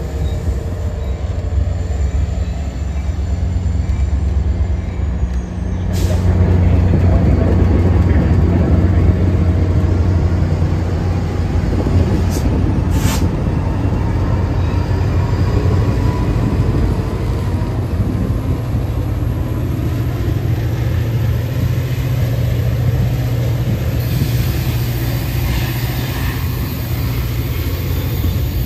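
Diesel passenger train at the station, its locomotive engine running with a steady low hum that grows louder about six seconds in. A few sharp clicks and a hiss ride over it.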